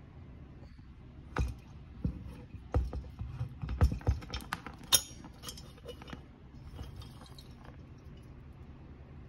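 A ceramic Christmas village house being handled and turned around: a run of knocks and light clinks over about five seconds, then only soft handling noise.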